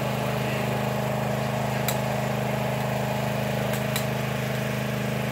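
An engine running steadily, with a few sharp clicks from rifle shots at the shooting station: one about two seconds in and two close together near four seconds.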